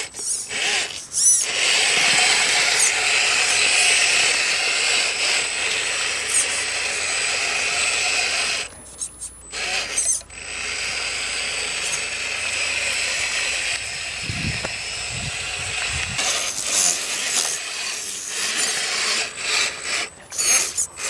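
Electric motor and geared drivetrain of an RC scale crawler truck running as it crawls over mud and rocks, with a steady high-pitched whine. It stops briefly about a second in and again around nine seconds in, then carries on.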